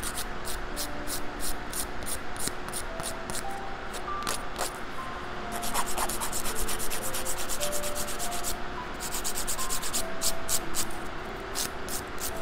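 A hand nail file rasping back and forth across a fingernail, shaping the nail tip. The strokes come in quick runs, about three or four a second, with short pauses between runs.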